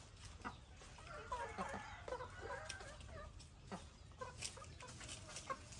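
Rooster clucking softly: a run of short, quick calls from about one to three seconds in, followed by a few light clicks.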